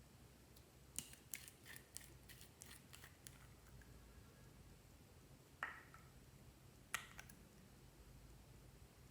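Slime being mixed by hand, making faint sharp clicks and pops: a run of about eight small clicks from about a second in, then two louder single clicks later.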